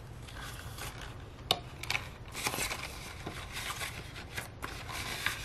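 Paper banknotes rustling and sliding as a stack of cash is tucked into a cash envelope in a ring binder, with a couple of light clicks early in the second half.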